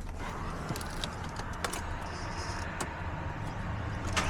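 Volkswagen Amarok engine idling steadily just after starting on a newly fitted battery, with a few light clicks over it.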